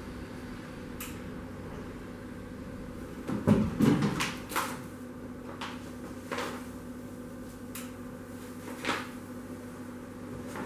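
Knocks, clicks and crackles of a large sheet of sign material being handled at a roller machine, over a low steady hum. A cluster of clunks and crackles about three and a half to four and a half seconds in is the loudest part, with single sharper clicks now and then.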